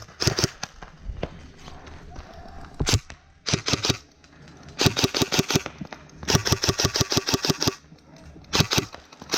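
Airsoft guns firing in rapid bursts of sharp snapping shots. A single shot comes about 3 s in, and the longest burst, about a second and a half, falls midway.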